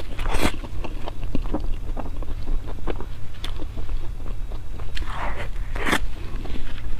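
Close-miked eating: chewing with many small wet clicks and smacks, with louder bites just after the start and again around five to six seconds in.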